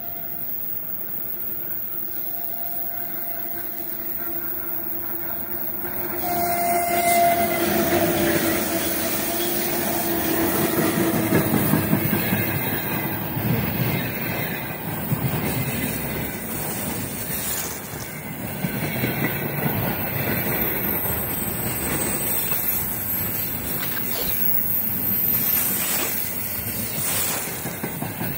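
3ES5K 'Ermak' electric locomotive hauling a freight train approaches with a steady hum and goes by close about six seconds in. After it the container wagons rumble past with the clickety-clack of wheels over rail joints.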